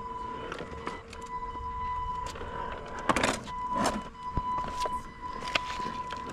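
Robbe Rodeo 6x6 RC truck's electric drive motor and gearbox running with a steady whine as it crawls over stones, broken briefly about a second in. Clicks and knocks of the tyres and chassis on the rocks run alongside, and a louder cluster of scrabbling knocks comes around the middle.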